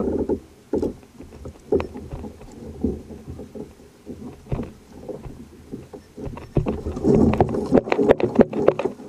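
Knocks and rattles on a fishing kayak, its hull and gear being handled: separate bumps about once a second, then a busier stretch of rapid knocking and rattling over the last few seconds.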